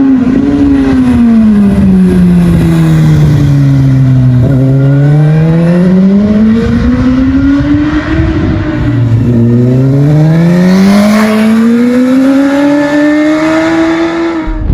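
2022 Suzuki Katana's 999cc inline-four engine running loud under throttle. The revs sink slowly for about four seconds, climb, drop suddenly about nine seconds in, then climb again.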